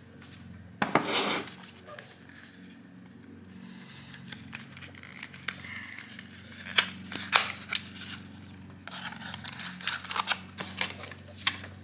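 Hands handling plastic drone accessories and packaging: a short rustle about a second in, scattered sharp plastic clicks and taps, and paper rustling near the end as the printed manual is drawn out. A faint low hum sits underneath.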